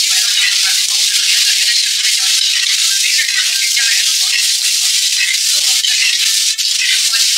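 Vegetables and meatballs sizzling in hot oil as they are stir-fried in a stainless-steel wok: a loud, steady, crackling hiss.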